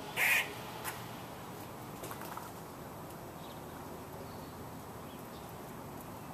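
A squirrel giving one short, loud call right at the start, followed by a few faint clicks.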